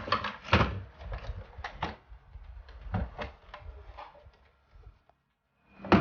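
Irregular clicks and knocks of hard plastic being handled, parts of a plastic RC toy being knocked, shifted and set down, louder near the start and thinning out toward the end.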